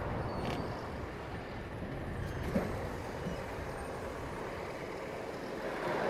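Engine of a heavy lumber-handling lift machine running steadily as it carries a stack of boards, with a light knock about two and a half seconds in.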